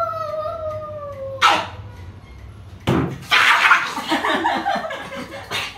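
A pug's long whine, falling slightly in pitch, then a short sharp sound about a second and a half in. About three seconds in, a sudden loud thump, followed by a couple of seconds of rough, noisy scuffling as the dog lunges across the tiled floor.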